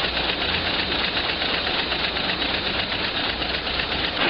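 Two-stage head-punching machine running at full speed, cutting wire to length and punching screw heads: a rapid, even mechanical clatter.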